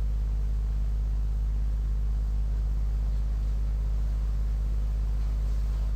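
Steady low hum with a faint hiss, unchanging throughout: the background noise of the recording between spoken phrases.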